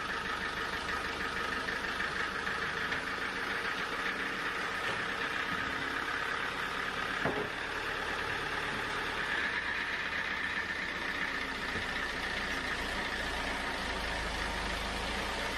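An engine running steadily at an even speed, with one short click about seven seconds in.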